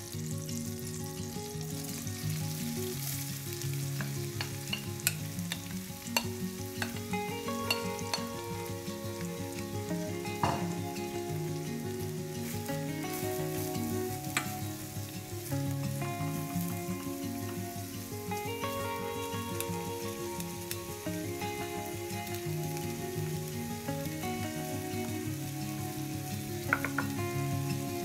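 Butter sizzling in a stainless steel frying pan, then sliced onions and peppers frying and being stirred with a wooden spoon, with a few sharp clacks against the pan. Soft background music with held notes plays underneath.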